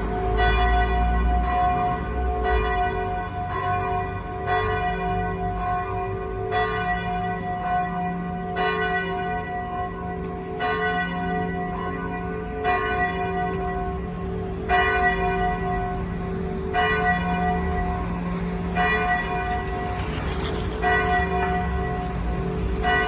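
Church bell ringing for Sunday Mass. It is struck about once every two seconds, with each stroke ringing on into the next.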